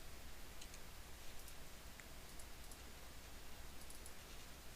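A few faint, scattered clicks of computer keys over a low steady hum.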